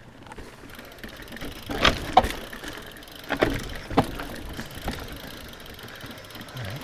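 Mountain bike rolling fast down a rough dirt trail: steady tyre and ride noise with a handful of sharp knocks and rattles as the bike hits rocks and roots, the loudest about two seconds in.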